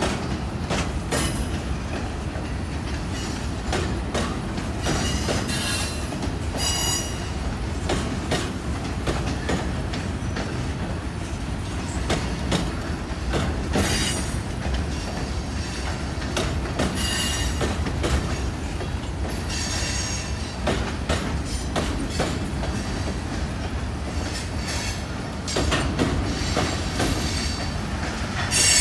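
Freight cars of a long mixed freight train rolling past: a steady low rumble of steel wheels on rail, broken several times by short high-pitched wheel squeals.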